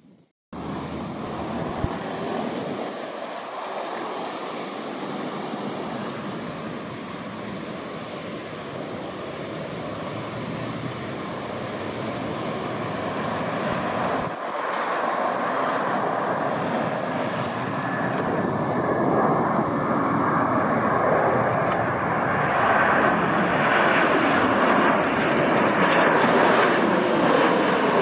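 Jet airliner's engines, a steady rushing noise that grows steadily louder as the aircraft comes closer.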